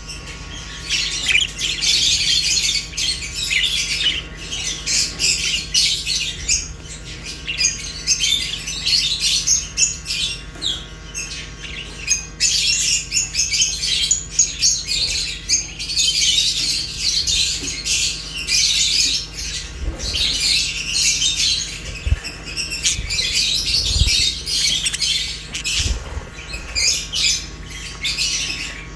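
Budgerigars and lovebirds chirping, chattering and squawking together, a continuous mix of fast high-pitched calls. A few soft thumps come in the second half.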